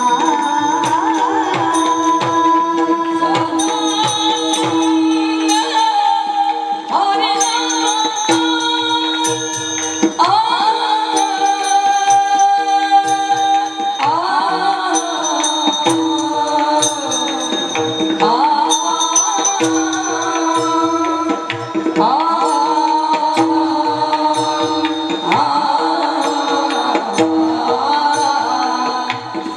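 Marathi kirtan devotional music: a singer carries a gliding melody over a steady drone, with drum strokes and jingling hand percussion keeping time.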